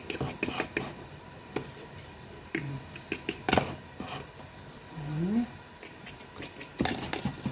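Fork clicking and scraping against a bowl while beating egg and grated parmesan together, irregular taps in bunches, stirred until the mixture thickens.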